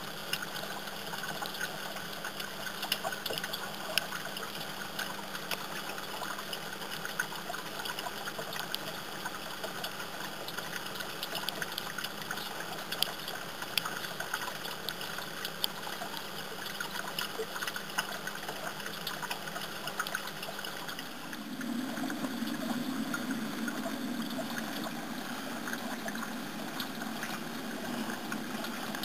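Small frog-figure garden fountain spouting a thin jet of water: steady trickling and splashing with many small drips, growing somewhat louder about two-thirds of the way through.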